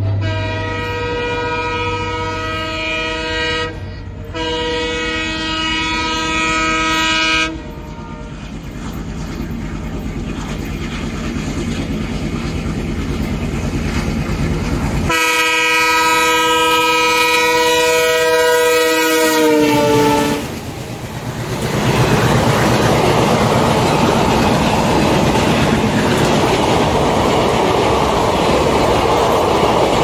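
An ALCO WDG3A diesel locomotive sounds its multi-tone horn in two long blasts, then chugs louder as it approaches. A third long blast drops in pitch at its end as the locomotive passes close by. The ICF passenger coaches then roll past with a steady wheel clickety-clack.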